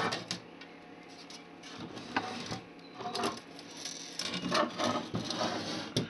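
Handling noise from the metal-and-plastic cover of a keyswitch burglar alarm control panel being opened and moved about: irregular clicks and knocks with rubbing and scraping between them, busiest in the second half.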